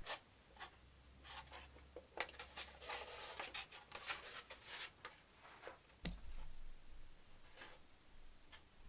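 Faint scratching and rubbing of small parts being handled, with a few light clicks and a sharper knock about six seconds in.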